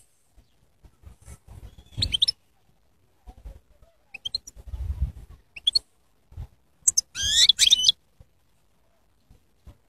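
European goldfinch singing in short, scattered twittering phrases, with a longer run of quick rising and falling notes about seven seconds in. A few low rumbles sound underneath.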